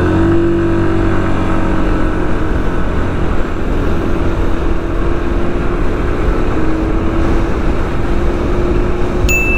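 Hero Pleasure 102 scooter's single-cylinder four-stroke engine held at full throttle through a 0 to 60 km/h run, its drone staying at a nearly steady pitch as road speed builds, with wind noise over it. A high steady beep starts near the end.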